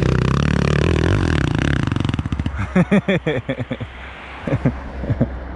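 Dirt bike engine revving hard under load for about two seconds, then falling off into a few short, uneven revs and sputters before dropping back.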